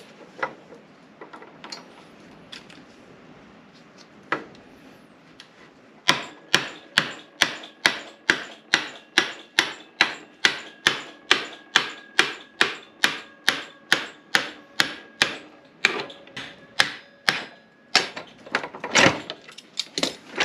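Hammer driving a brass drift against the seized front axle spindle of a Ducati 999S, knocking it out through the wheel bearings: a steady run of sharp, slightly ringing blows at about three a second, starting about six seconds in, followed by a few slower, louder blows near the end. The spindle is stuck in the bearings' inner sleeve.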